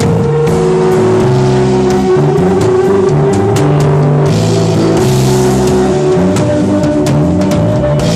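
Instrumental rock band playing: drum kit hits over a moving bass line, with a sustained cymbal wash swelling about four seconds in.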